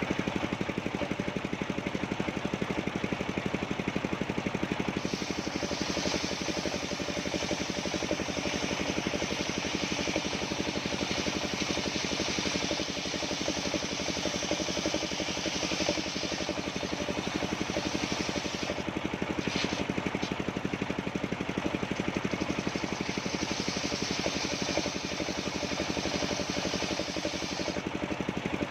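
Engine of a portable sawmill running steadily, its saw cutting through coconut-palm wood from about five seconds in until near the end, with a short break around twenty seconds.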